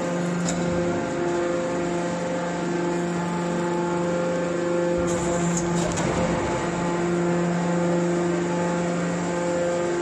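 Hydraulic scrap-metal baler running, its motor and hydraulic pump giving a steady hum, with a few faint clicks.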